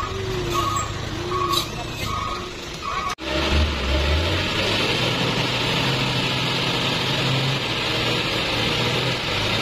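A truck's reversing alarm beeping about twice a second; after a sudden cut about three seconds in, a heavy truck's diesel engine runs hard under load with a steady rushing hiss, working to pull out of deep mud.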